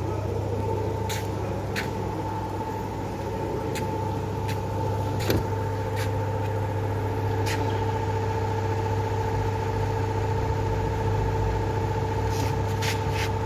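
A steady mechanical hum with two steady higher whining tones over it, unchanging throughout. Scattered light clicks and taps sound over it, about a dozen in all.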